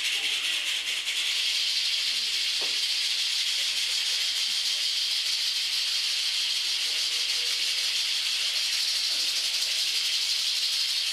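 Steady high-pitched hiss, with one faint knock about two and a half seconds in.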